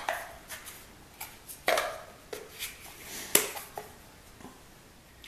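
Handling noise from a PVC pipe spool and thin plywood end discs: several light knocks and clicks as the parts are picked up, fitted together and set on the table, two of them sharper than the rest.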